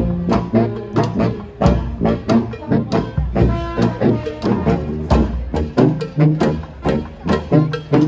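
A street brass band playing: horns and sousaphones over a steady drum beat.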